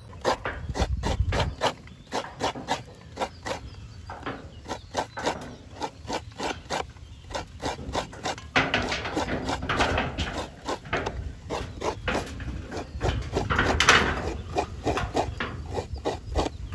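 Kitchen knife tapping on a wooden chopping board as tomatoes are sliced, a steady run of sharp taps about three a second. In the second half a louder rustling and rubbing joins in, from hands squeezing grated coconut over a steel plate.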